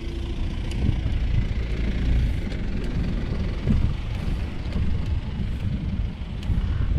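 Low, fluctuating rumble of a moving vehicle mixed with wind buffeting on the microphone.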